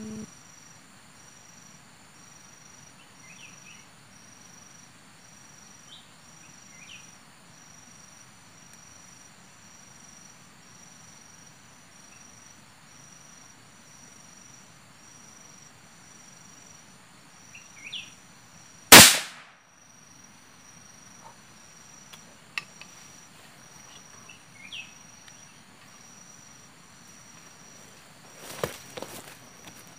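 A single sharp gunshot from a hunting rifle a little past halfway, over a steady background of insects with a few faint chirps. Rustling of leaves and movement follows near the end.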